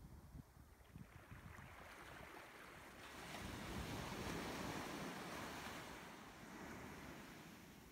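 Faint surf washing on the shore, swelling about three seconds in and slowly fading, with wind rumbling on the microphone near the start.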